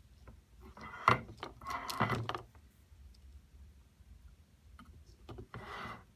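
Soldering work on an LED circuit board: two short bursts of scraping, crackling noise, the first about a second in with a sharp knock, the second near the end.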